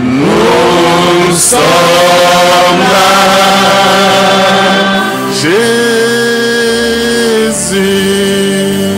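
Worship singing: a man sings long held notes into a microphone, each phrase sliding up into its note, over steady sustained backing notes.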